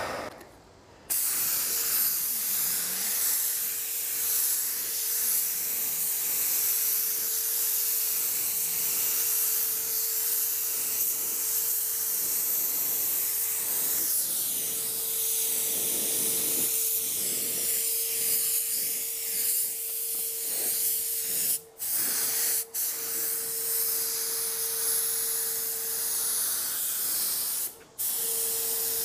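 YT160 (R500) low-volume, low-pressure spray gun spraying a coat of clear with a steady hiss of air and atomised paint, over a faint steady tone. It starts about a second in and cuts out briefly three times near the end.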